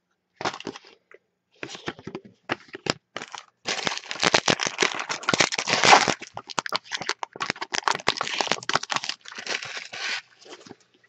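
Foil wrapper of an Upper Deck Trilogy hockey card pack crinkling and tearing as it is torn open, a dense crackle from about three and a half seconds in. Before that come scattered light clicks and rustles of cards being handled.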